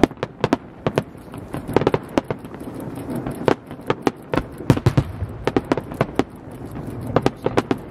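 Aerial firework shells bursting in a rapid, irregular string of sharp bangs that come in clusters.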